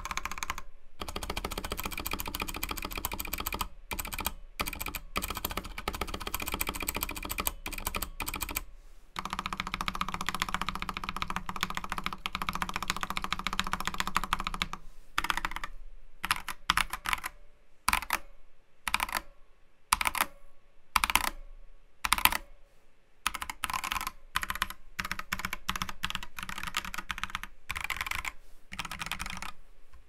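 Typing on a Next Time 75 hotswap mechanical keyboard in stock form, before its foam and tape mods, fitted with Durock Moss linear switches and PBT keycaps. For about the first half the keystrokes come fast and run together; after that the keys are pressed separately with short pauses between strokes.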